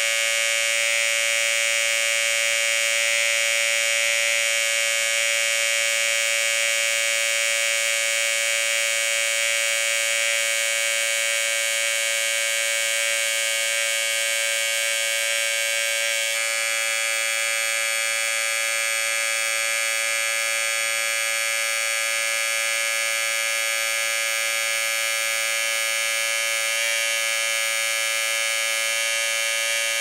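Electric hair clippers running with a steady buzz, one unbroken hum with many overtones. The tone changes slightly about halfway through.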